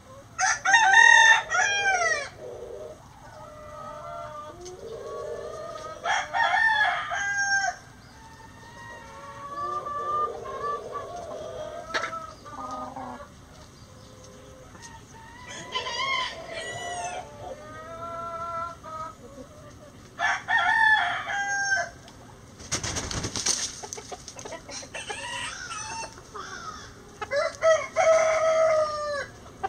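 Roosters crowing in turn, about five crows a few seconds apart, with hens clucking more quietly between them. About two-thirds through there is a sudden rush of noise lasting about a second.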